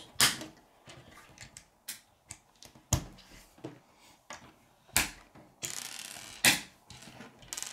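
Plastic K'nex connector pieces being snapped together and handled: several separate sharp clicks, with a short scraping rustle of pieces shortly before the last click.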